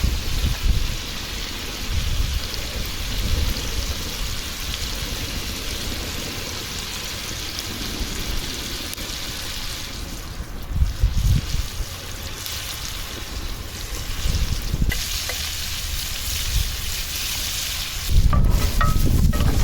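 Food frying in a pan with a steady sizzle, with gusts of wind rumbling on the microphone that grow stronger near the end.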